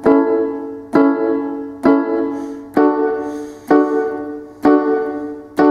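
Keyboard in a piano voice playing block chords, one struck about every second and left to fade. A first-inversion A major chord (C sharp, E, A) is struck three times, then the chord changes to D major (D, F sharp, A), with the top A held constant, and is repeated.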